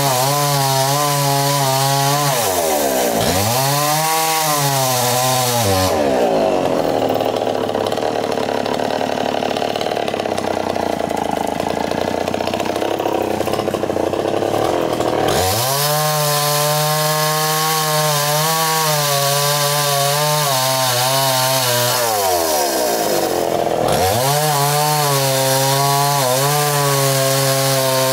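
Two-stroke chainsaw revving up and dropping back several times. For about nine seconds in the middle it runs rougher and lower, typical of the chain biting into wood under load.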